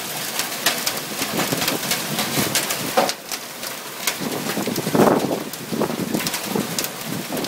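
Hail and heavy rain pelting down in a dense, steady patter full of sharp hailstone clicks, with a louder burst of lower sound about five seconds in.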